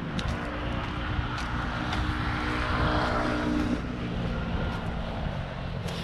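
Engine of an aircraft passing overhead, a steady hum that swells to its loudest about halfway through and then fades, with a few light footsteps on pavement.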